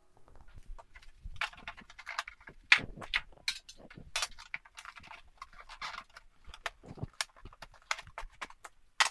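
Packaging being handled on a tabletop: irregular rustling and scraping with light knocks and taps as grip-tape sheets, a foam insert, a flat metal case and the box are picked up, shifted and set down. The sharpest knock comes a little under a third of the way in.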